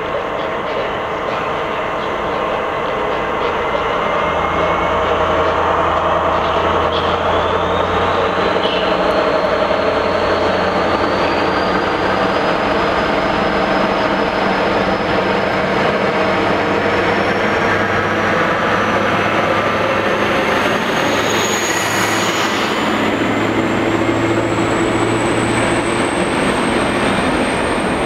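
DB Class 218 diesel-hydraulic locomotive pulling away with a passenger train, its diesel working hard under load, with a high whine that rises steadily in pitch as it gathers speed. It grows louder as it approaches and passes close near the end, followed by the coaches rolling by on the rails.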